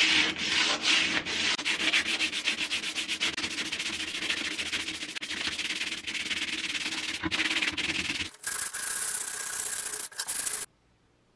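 Hand-sanding a coat of white filler on a steel helmet shell with sandpaper on a sponge block, a rasping back-and-forth rub. The strokes are slower and distinct at first, then quick and continuous, and cut off abruptly near the end.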